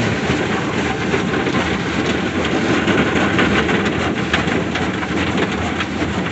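Autec soft-touch car wash's cloth brushes slapping and rubbing over the car's roof and sunroof in a dense, rapid, steady clatter, heard from inside the cabin.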